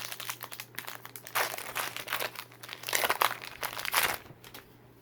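Foil wrapper of a Pokémon card booster pack crinkling and tearing as it is opened by hand, in several crackly bursts with the loudest about a second and a half, three and four seconds in.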